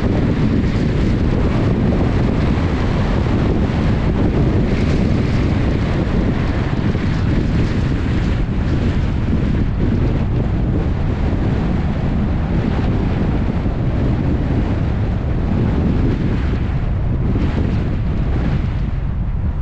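Steady wind noise on the camera microphone over the low road rumble of a car driving.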